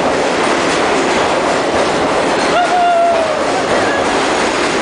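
Subway train passing along the platform at speed: a loud, steady rush and clatter of wheels and cars, with a brief high squeal about halfway through.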